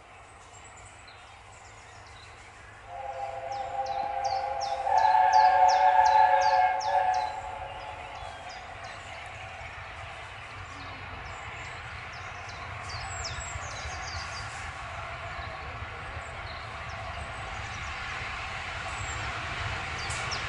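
A steam locomotive's chime whistle blows once, a chord of several notes held for about four seconds starting about three seconds in, loudest in the middle. After it, the steady rumble of the approaching train on the rails slowly grows louder.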